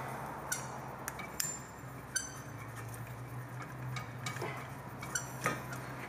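Light metallic clinks and ticks, about seven spread irregularly, from a brake caliper piston wind-back tool being turned by hand to screw the rear caliper piston back in. A steady low hum runs underneath.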